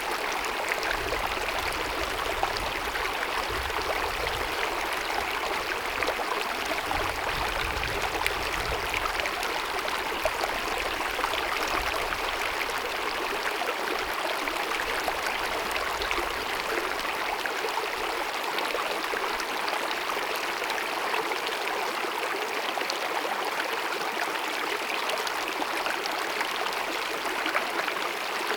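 Small mountain stream babbling and gurgling steadily over rocks. A faint low rumble under the water sound fades out a little past halfway.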